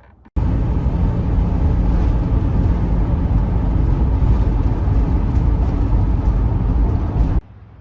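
Class C motorhome driving: a steady, loud engine and road rumble that starts and stops abruptly.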